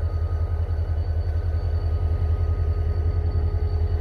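Steady low engine rumble with a quick, even pulse and a faint steady hum above it.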